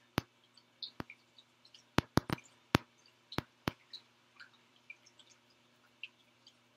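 Marker tapping and dotting points onto a graph grid on a whiteboard: a string of about eight short, sharp taps in the first four seconds, then only faint ticks.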